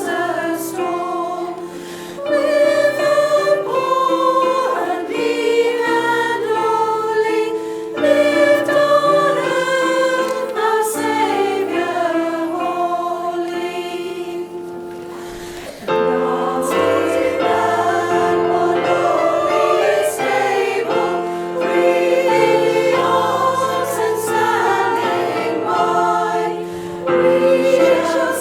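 Women's choir singing in harmony, with held notes throughout; the sound breaks off and resumes abruptly about halfway through.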